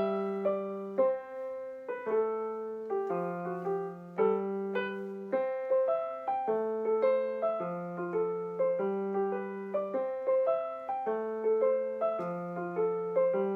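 Alesis Recital digital keyboard played on its piano voice: a simple repeating chord pattern over a steady bass line, notes held and overlapping.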